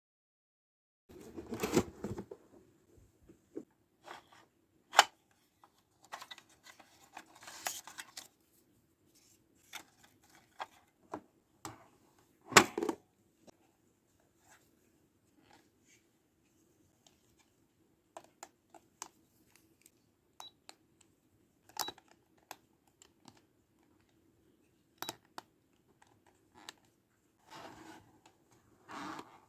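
Toy packaging and plastic toy parts being handled during an unboxing: scattered sharp clicks and taps with short crinkling, tearing rustles, the loudest bursts about 2 seconds in and about 12 seconds in.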